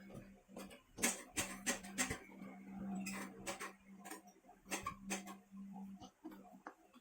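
Irregular small clicks and taps of a rice cooker's metal parts and a tester being handled during a repair, over a faint steady hum.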